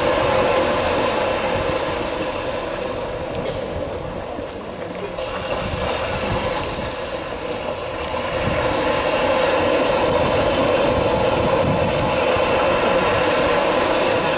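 A loud, steady rushing noise that dips a little in the middle and swells again about eight seconds in.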